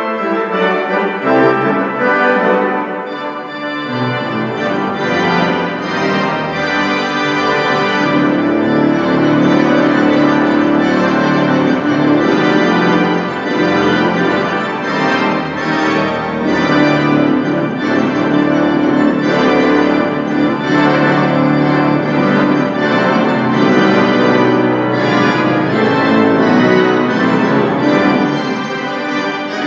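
Cavaillé-Coll pipe organ, in need of restoration, played loud and full in an improvisation on the stops that still work: sustained chords, with deep bass notes joining about four seconds in.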